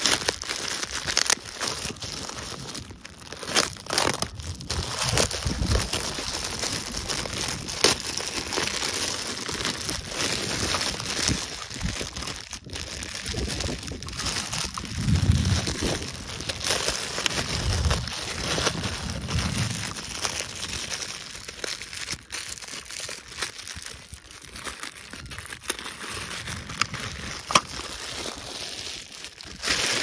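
Clear plastic packaging bag crinkling and rustling in quick, crackly bursts as hands work it off a die-cast toy tractor, with a few low thumps from handling around the middle.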